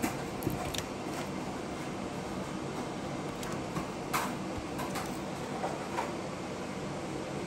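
Light clicks and scrapes of a thin metal blade prying a rubber pinch roller off its spindle in a cassette deck's tape mechanism, a few separate clicks with the sharpest about four seconds in, over a steady hiss.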